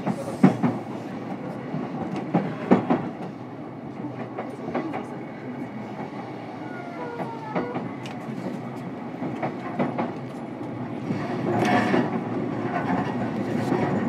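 JR East E233-1000 series electric train heard from inside its motor car while running between stations, with steady running noise and sharp clicks of the wheels over rail joints. The running noise grows louder about eleven seconds in.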